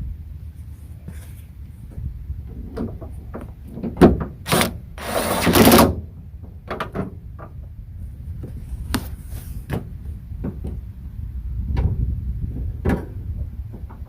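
Scattered clicks and knocks of parts and tools being handled inside a pickup truck door while the door handle mechanism is reassembled, with a sharp knock about four seconds in followed by a second-long scrape, over a low steady rumble.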